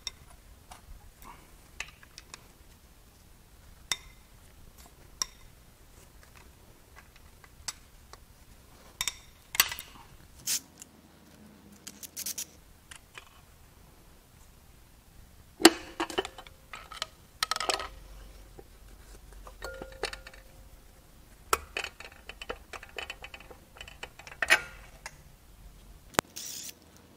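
Scattered metal clinks and clicks of engine parts and hand tools being handled and set down while an SR20DET's connecting rods, rod caps and pistons are removed. A few sharper clanks just past halfway ring briefly.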